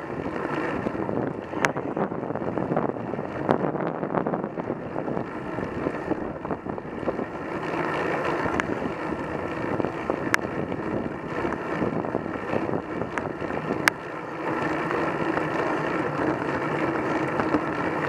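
Road bike riding in a group on tarmac: steady tyre and wind noise, with a few sharp clicks scattered through.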